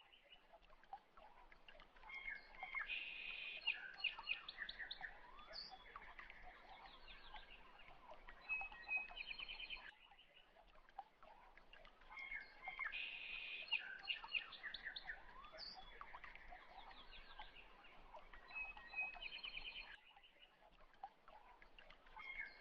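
Faint birds chirping and trilling in short bursts. The same ten-second stretch of birdsong repeats over and over, as in a looped background track.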